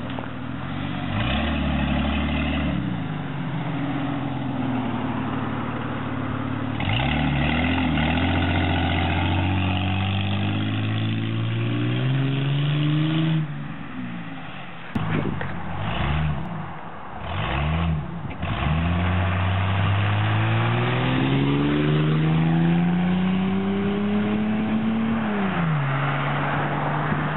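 1994 Mercury Cougar's 3.8-litre V6 running through a true-dual exhaust with its rear single-outlet section removed, accelerating hard and sounding like a beast. The engine pitch climbs for about ten seconds, drops, rises and falls several times quickly, then climbs again before dropping and holding steady near the end.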